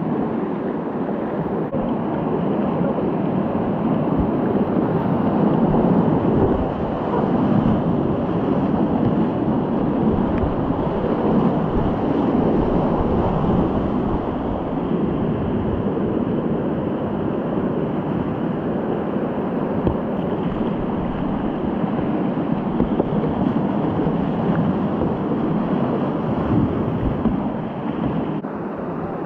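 Whitewater rapids rushing and churning around a kayak, heard close up as a steady, loud wash of water.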